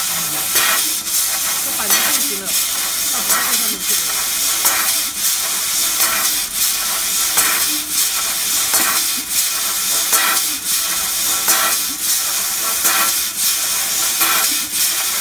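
2200 W fiber laser cutting head cutting through a metal pipe: a loud, steady hiss and sizzle of the cut and its sparks, pulsing regularly a little more than once a second.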